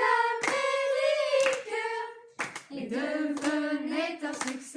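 Children's choir singing a song, held notes moving in pitch, with a lower sung line coming in about halfway through. A few short sharp strikes sound between the phrases.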